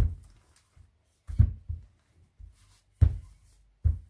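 Wooden rolling pin rolling out a sheet of croissant dough on a counter: four dull thuds, about a second apart, one with each push of the pin.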